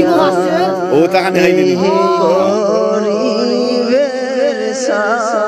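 Background music: a man singing a Bengali song in long, wavering held notes that glide between pitches.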